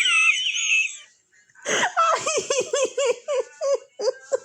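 A woman's uncontrollable wheezing laugh: a high squeal, a breathless gap about a second in, then a quick run of short high-pitched laughs, about four a second.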